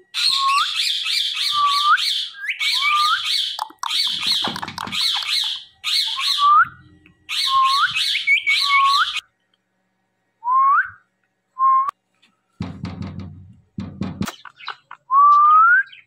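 Indian ringneck parakeet chattering: runs of rapid, high repeated notes, each run ending in a short rising whistle, over and over for about nine seconds. A few lone rising whistles follow, with a brief burst of rough, rustling noise in between.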